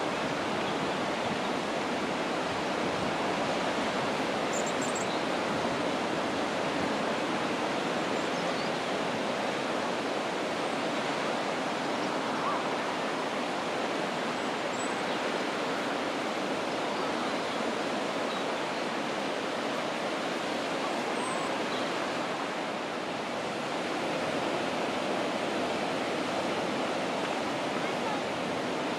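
Steady wash of surf breaking on a sandy beach, a continuous even rush of noise.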